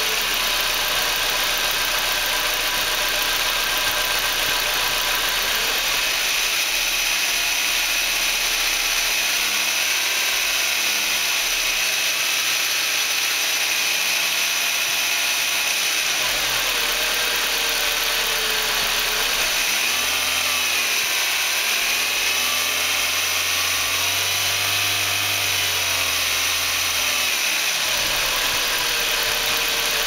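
Volkswagen Passat B5's AEB 1.8-litre turbocharged four-cylinder engine idling steadily with a misfire, which the owner is fairly sure is in cylinder two even with freshly cleaned new spark plugs.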